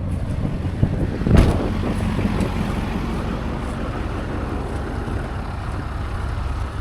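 An engine running steadily, with a single knock about a second and a half in.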